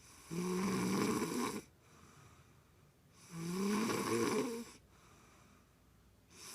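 A sleeping woman snoring: two long snores about three seconds apart, each lasting around a second and a half, with a third starting right at the end.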